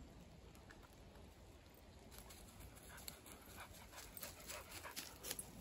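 A dog panting faintly, with short irregular crackles starting about two seconds in and growing louder toward the end.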